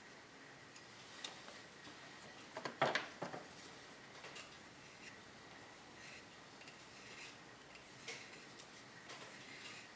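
Light clicks and taps of a steel woodcarving tool being handled, with a short cluster of sharper knocks about three seconds in. A faint steady high whine runs underneath.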